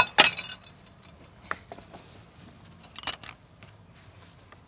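Knife slicing a sushi roll on a plastic cutting board, with a few sharp knocks and clinks of the blade and dishes. The loudest are near the start, with single ones about a second and a half and three seconds in.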